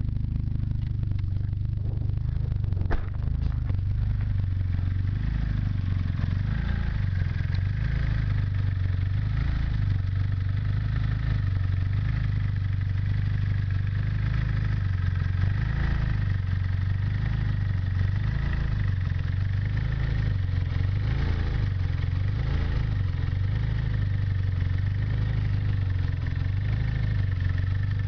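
Turbocharged Honda D16 SOHC four-cylinder engine idling unevenly, its note rising and falling about once a second, with one sharp click about three seconds in. The owner puts the trouble down to the MAP sensor.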